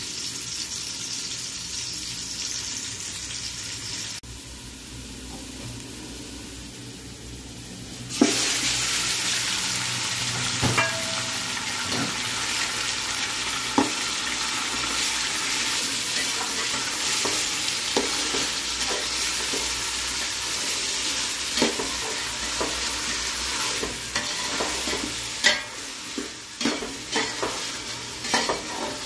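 Sliced onions sizzling in hot oil in an aluminium pot; about eight seconds in, marinated mutton pieces go in and a louder, steady sizzle takes over. A fork scrapes and clicks against the pot as the meat is stirred, more often near the end.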